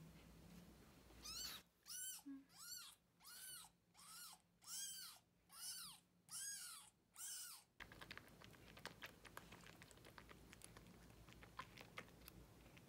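Kitten meowing about ten times in a row: short, high-pitched calls that rise and fall in pitch, roughly one and a half a second, stopping about eight seconds in. Faint light ticks follow.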